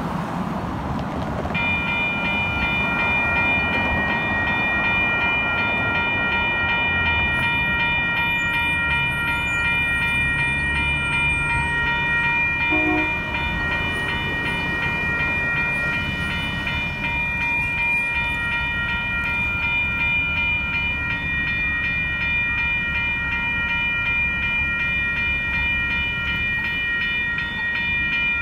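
Railroad grade crossing warning bell starting about a second and a half in and then ringing steadily and rapidly while the crossing signals flash and the gates are down.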